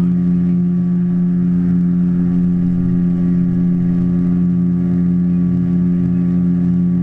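Small river boat's motor running at a steady cruising speed: an even, unchanging drone with a strong low hum.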